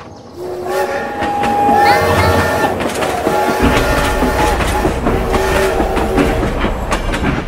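Battery-powered toy steam-locomotive train set running on plastic track, sounding electronic train-whistle tones over rhythmic clicking. A steady low hum joins about three and a half seconds in.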